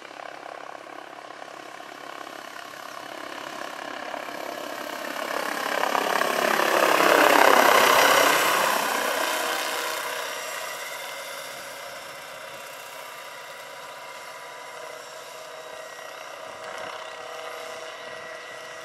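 Electric-powered Vario Bell 212 scale model helicopter with a 2.36 m rotor flying past. The whir of its rotor and electric drive builds to its loudest about seven to eight seconds in, falls in pitch as it goes by, then settles into a steady drone.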